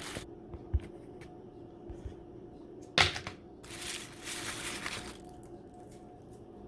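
Handling noises as a takeout food container is readied for reheating: a few light clicks, a sharp click about three seconds in, then a second or so of rustling.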